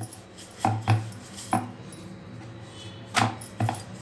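Wooden rolling pin rolling out dough on a round wooden board, knocking against the wood about five times at uneven intervals.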